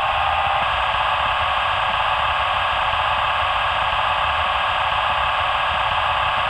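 Air-compressor sound of an ÖBB class 1041 electric locomotive, recorded on the real locomotive, played by a PIKO H0 model's SmartDecoder 4.1 Sound through its small onboard speaker. It is a steady, even running noise with almost no bass.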